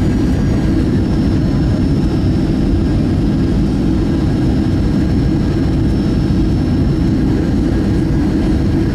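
Steady cabin noise of a Southwest Airlines Boeing 737 on final approach, heard from inside the cabin: a low, even rumble of engines and airflow with a faint steady high whine above it.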